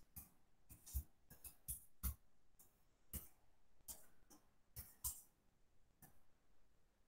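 Faint, irregular clicks and taps, about two a second.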